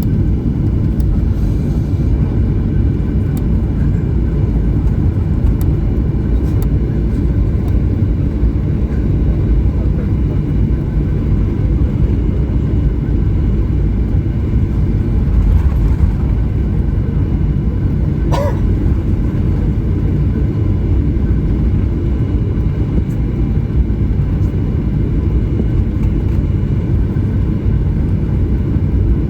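Steady low rumble inside the cabin of a Boeing 737-900 taxiing, with its CFM56-7B engines near idle. A brief faint chirp comes about eighteen seconds in.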